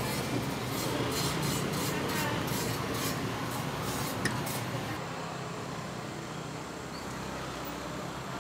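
Bamboo skewers of blood rice cake being handled: skewers and cakes rattling and rubbing against each other and a stainless-steel bowl, a run of light clicks and rustles in the first half. Under them runs a steady hum of street noise.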